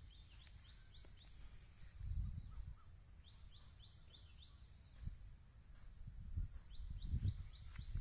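Rural field ambience: a steady high-pitched insect drone, with three runs of quick short chirps at about four or five a second. Low rumbles on the microphone come about two seconds in and again near the end.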